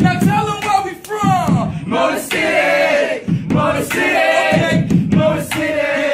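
A man's voice chanting and singing a cappella, pitched and gliding, with a few sharp knocks about every one and a half seconds.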